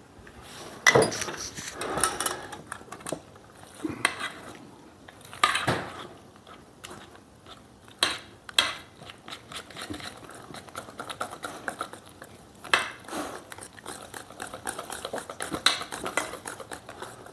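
Wire whisk clinking and scraping against a stainless steel mixing bowl as pancake batter is stirred, in irregular strokes with a sharper clink every few seconds.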